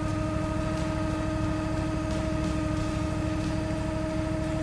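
Weedoo workboat's engine and hydraulic system running steadily as the mower boom is lowered into the water: a constant low hum with a steady whine over it.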